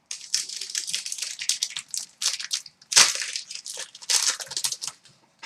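Foil wrapper of a hockey card pack crinkling as the pack is opened and handled: a quick run of crackling rustles, loudest about three seconds in.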